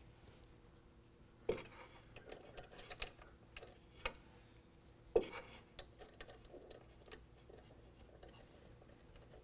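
Faint metallic clicks and taps at irregular moments, the strongest about a second and a half in and about five seconds in: an aluminum spacer, lock washer and nut being fitted by hand onto a bolt through the truck's steel bed pillar and threaded finger tight.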